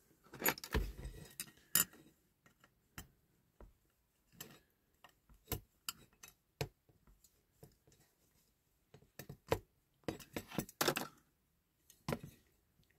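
Thin metal tool clicking and scraping against the diecast metal turntable and body of a toy fire engine while working a pin and spring loose: scattered light ticks, bunched in the first two seconds and again about nine to eleven seconds in.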